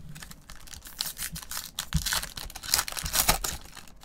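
Foil wrapper of a 2021 Panini Mosaic baseball pack being torn open and crinkled by gloved hands: a run of crackling rips, loudest about three seconds in.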